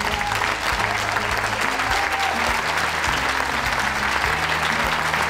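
Crowd applauding steadily, with music and a low bass line playing underneath.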